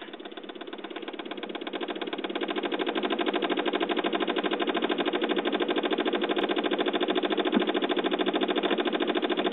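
Rapid, even buzzing chatter from a 2007 Saab 9-5's electrics as the key is turned, starting suddenly, swelling over the first couple of seconds, then holding steady. The car will not start on its weak battery.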